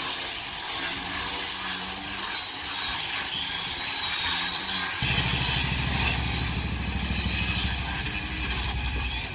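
Power grinders whining steadily on the hull of a wooden boat, grinding off the old caulking. About five seconds in, a low engine hum starts and keeps running steadily.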